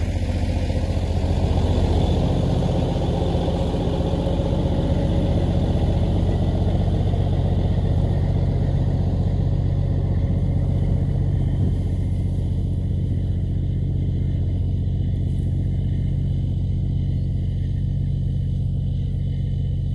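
Peterbilt 379 semi truck's diesel engine running steadily at a fairly even pitch, without speech.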